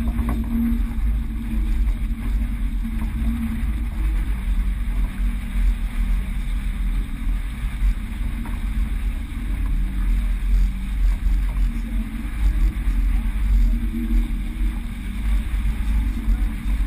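Steady low rumble aboard a sailboat under way, with wind buffeting the microphone.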